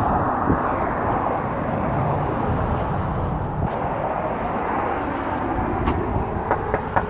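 Steady vehicle running noise, an even rumble without clear beats, with a quick run of short pitched blips near the end.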